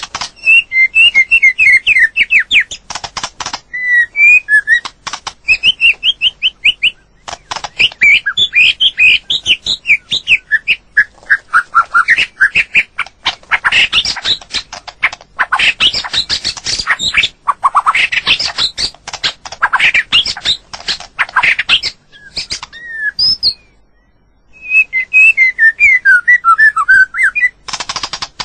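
White-rumped shama singing: a rapid, varied run of whistled notes and sweeping phrases with harsher chattering passages, pausing briefly near the end before starting again.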